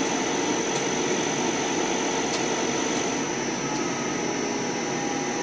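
CNC lathe running with its spindle turning a metal bar at reduced speed while the turning insert cuts along the outside diameter: a steady mechanical whir with a thin, constant high whine over it.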